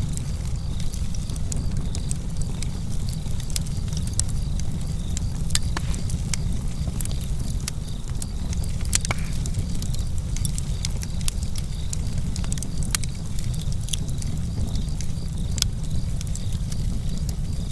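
Campfire burning outdoors: irregular sharp crackles and pops from the burning wood over a steady low rumble of flames and breeze, with crickets chirping steadily in the background.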